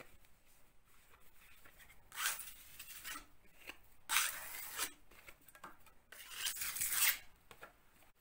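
Three rough scraping strokes, each about a second long and about two seconds apart: a metal filling knife being scraped clean of plaster filler.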